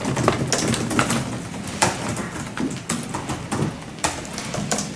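Scattered, irregular light clicks and taps in a small room.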